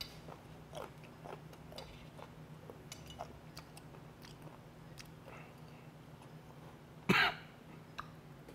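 Soft chewing and small mouth and utensil clicks from a man eating steamed fermented skate, then a single short cough about seven seconds in.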